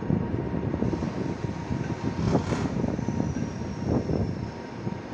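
Passenger railway coaches rolling past: a steady rumble of wheels on the rails with irregular clacks and knocks, a couple of louder ones about two and a half seconds in. A faint high whine sliding slightly down comes in about three seconds in.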